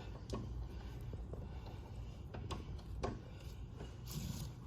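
Tire irons prying a stiff rubber tire bead over a small 10-inch wheel rim: a few short clicks and knocks of the irons and a brief scrape near the end, over a low steady hum.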